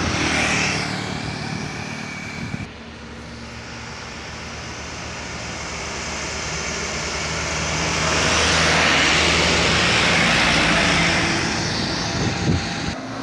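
Heavily loaded trucks' engines pulling up a steep grade. One truck's engine cuts off abruptly about three seconds in. Then another truck's engine swells as it approaches, is loudest around nine to ten seconds in, and fades as it goes past and away.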